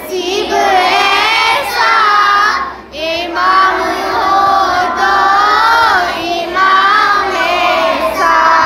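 Young boys singing a naat, an Islamic devotional poem, in long drawn-out phrases, with short breaks for breath about three seconds in and again past six seconds.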